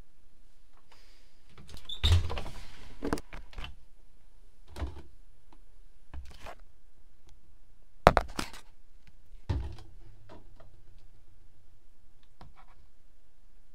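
Handling noises from a Privileg front-loading washing machine being loaded. There are plastic clunks and clacks from the porthole door and the detergent drawer, and a short scraping rush about two seconds in. The sharpest clack comes about eight seconds in.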